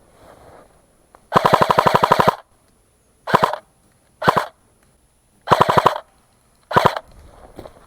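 Airsoft gun firing on full auto at about fifteen shots a second: one burst of about a second, then four shorter bursts over the next few seconds.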